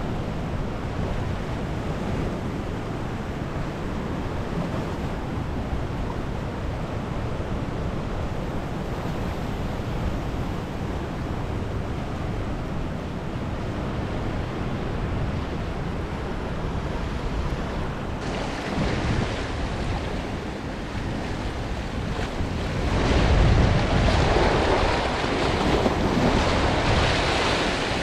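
Sea surf washing and breaking against rocky shore, with wind buffeting the microphone. From about two-thirds of the way in the surge grows louder as waves break close against the rocks.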